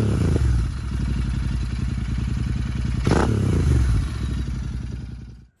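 Motorcycle engine running with a rapid, even exhaust pulse, its throttle blipped at the start and again about three seconds in, then fading out near the end.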